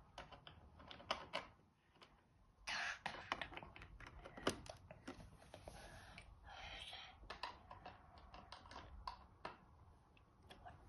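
Plastic Lego bricks clicking and rattling as they are handled, in quick irregular clicks, with a denser rattle about three seconds in.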